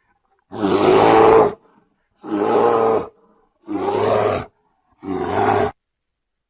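Brown bear roaring four times, separate growling roars about a second long each with dead silence between them. The first is the longest and loudest.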